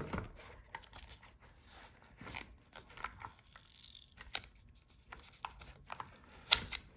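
Scattered small clicks, taps and rustling from hands working a laptop LCD panel and its video cable connector, with a sharper click near the end.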